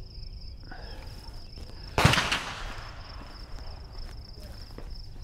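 A single rifle shot about two seconds in, dying away in a short echo. A steady, high-pitched insect drone runs underneath.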